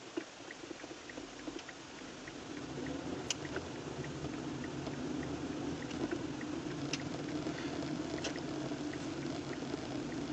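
Car cabin noise from an engine and tyres on the road, growing steadily louder as the car gathers speed. Faint regular ticking in the first couple of seconds, and a few single sharp clicks.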